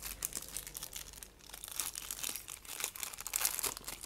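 A plastic snack packet crinkling as it is handled and tipped out, a quick irregular crackle throughout, busiest near the end.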